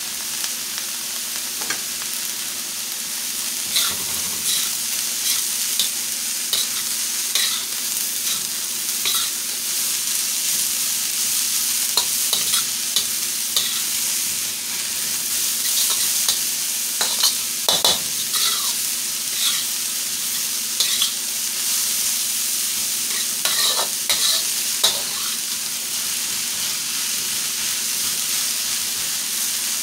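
Chopped cabbage and red onion sizzling steadily in a hot steel wok while being stir-fried, with a metal wok spatula scraping and tapping against the pan at irregular moments.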